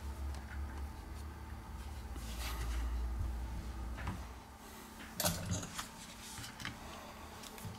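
Gloved hands handling a detached smartphone display and its frame on a tabletop: low rubbing and shuffling, then a few light clicks and taps of the parts being set down, the sharpest about five seconds in.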